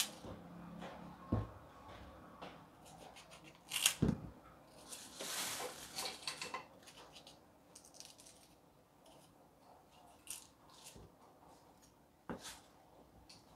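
A small kitchen knife cutting through crisp guava on a cutting board: faint, scattered crunches and knocks, the loudest about four seconds in, then a longer rasping scrape.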